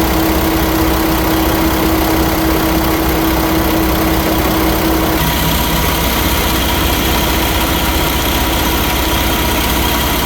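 Paccar MX-13 inline-six diesel engine idling steadily, its tone changing about five seconds in. The power-steering reservoir cap, which used to rattle, now has PTFE tape under its screw and is said to be silenced, leaving the engine running quietly.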